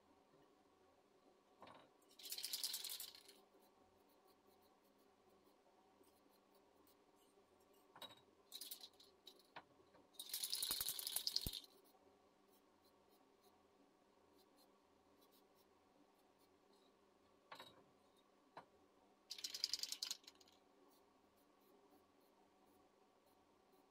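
Aerosol spray paint can hissing in three short bursts of about a second each, spaced several seconds apart. Light clicks and knocks of handling come between the bursts.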